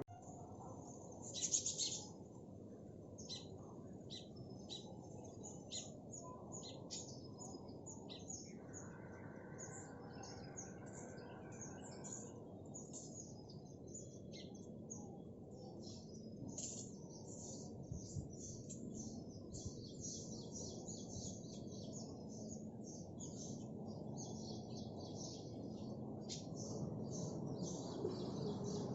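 Small songbirds chirping and twittering: a dense run of short, high calls, loudest in a burst near the start, over a steady low background hiss. A steady held tone runs for about three seconds in the middle.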